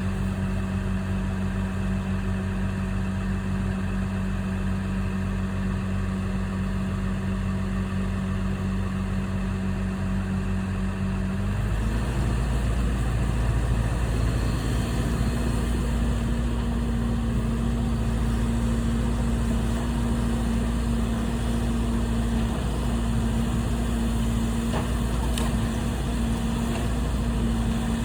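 A motor vehicle engine running steadily at idle. About twelve seconds in its note changes to a deeper, heavier rumble with a steady hum above it, as if the engine is put under load.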